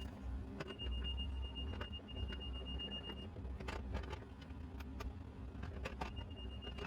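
A steady, high-pitched electronic alarm tone sounds for about three seconds, stops, and comes back near the end, over a low rumble and scattered knocks and clicks.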